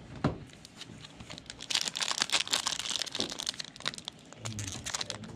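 Plastic trading-card pack wrapper crinkling and crackling as it is handled. It is densest for about a second and a half, starting some two seconds in, with a sharp click near the start.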